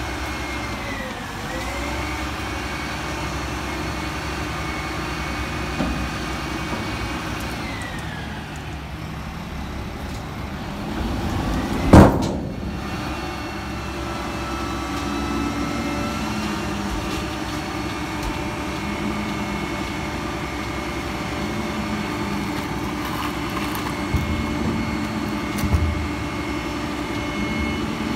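Mack front-loading garbage truck's diesel engine running, with its hydraulics whining up and down in pitch as the arms work the container. A loud bang about twelve seconds in, and a couple of smaller knocks near the end.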